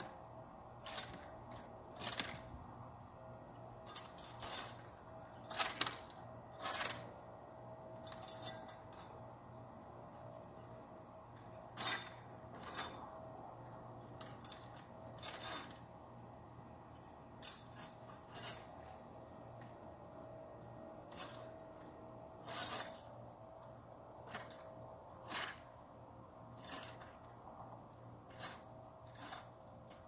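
Hand pruning shears snipping branches: about twenty short, sharp snips at irregular intervals, roughly one a second, over a faint steady hum.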